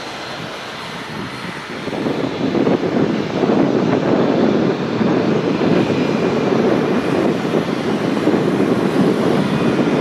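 Airbus A380's four jet engines heard from the ground as the airliner climbs out after takeoff: a deep, rough rumble that swells louder about two seconds in and stays loud.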